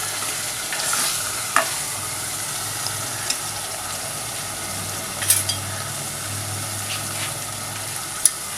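Onion and ginger-garlic masala frying in vegetable ghee, a steady sizzle, with a few short sharp clicks scattered through it.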